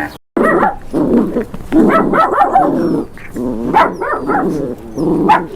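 A dog barking over and over, the barks coming singly and in quick runs of several.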